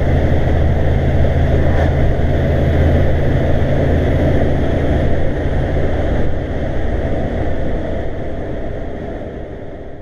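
Heavy truck's diesel engine running steadily at cruise with road noise, heard inside the cab, fading out over the last few seconds.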